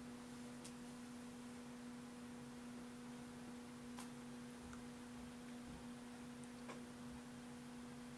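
A steady low hum held on one pitch, with a fainter tone above it, and a few faint, short ticks.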